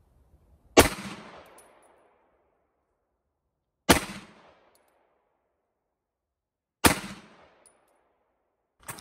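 Three single pistol shots about three seconds apart: slow, aimed fire for zeroing a red-dot sight. Each is a sharp crack followed by a short fading echo.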